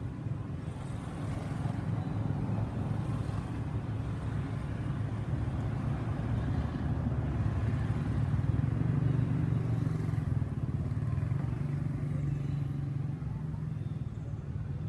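A motor vehicle's engine running, a steady low rumble that grows louder to about nine seconds in and then eases off.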